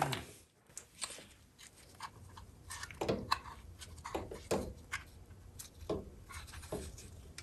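Hand-work on the engine's timing-belt tensioner: light metallic clicks, taps and short scrapes of tools and parts being handled. A power tool winds down with a brief falling whir at the very start.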